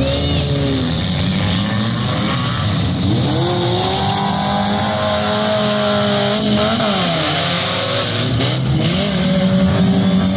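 Several demolition derby cars' engines running hard at once, their pitch rising and falling as they rev.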